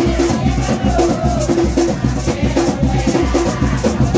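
Live drumming and shaken maracas playing a fast, steady rhythm, with voices singing over it: Garifuna wake music.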